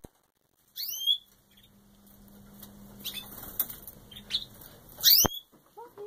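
Canaries giving short, high, sweeping chirps: a few about a second in, then more scattered ones later on. A single sharp click comes near the end.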